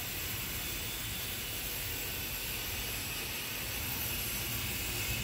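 Steady background hiss over a faint low rumble, with no distinct knocks or tool sounds.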